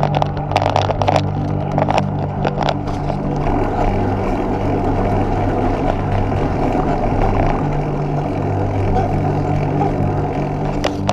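Wind rushing over a bicycle-mounted camera and road rumble while riding along a lane, with a few sharp knocks in the first few seconds.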